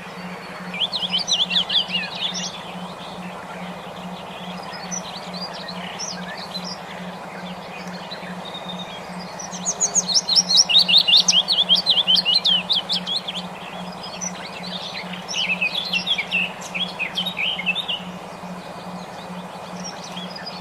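Small songbird twittering in fast, high trills of rapid chirps, in three bursts with the longest and loudest in the middle, over a steady low hum.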